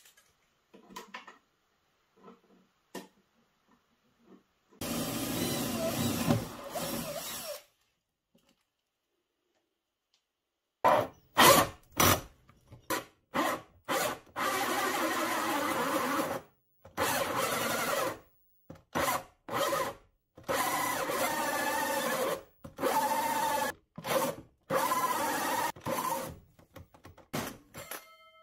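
Cordless drill driving a large bi-metal hole saw through a wooden cabinet floor, running in stop-start bursts of a few seconds each as the teeth cut into the board.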